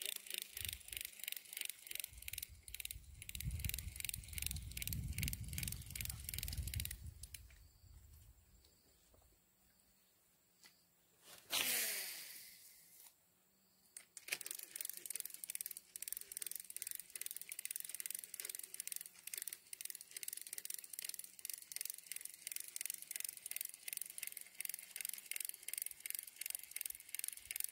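Fishing reel being cranked to retrieve a lure, giving a fast, even clicking. The winding stops for several seconds near the middle, where there is one short swish, then starts again.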